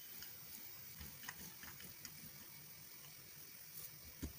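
Wooden rolling pin rolling seed-topped dough on a marble countertop: faint rubbing with scattered light clicks, and a soft thump near the end.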